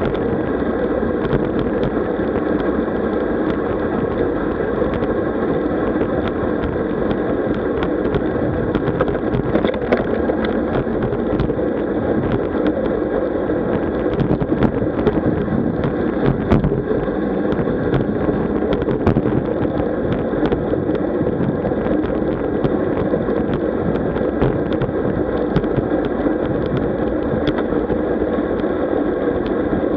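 Steady rushing noise of a moving road bike, with wind on the microphone and tyre and road noise, broken by many scattered short clicks and rattles.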